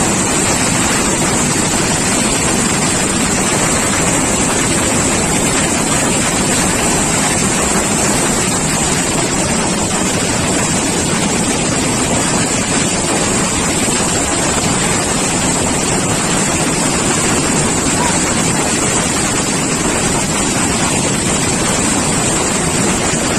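Floodwater rushing with great force: a loud, steady rush of water noise with no let-up, cutting off suddenly at the end.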